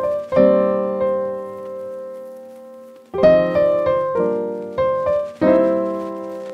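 Background music of slow keyboard chords. One chord is held and fades for nearly three seconds, then three more chords are struck about a second apart.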